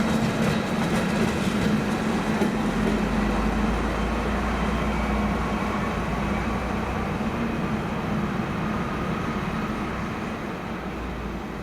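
A train running through a station, a steady low rumble with faint tones above it that slowly fades away towards the end.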